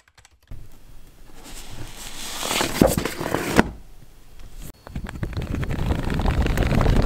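Pages of a comic book riffled quickly, a fast crackling flutter of paper, in two runs: the first building over the first few seconds, the second starting a little under five seconds in.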